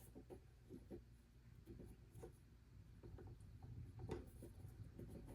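Near silence with a few faint, light clicks and handling sounds as plastic drone propellers are lined up and pushed onto the motors of a DJI Air 3S.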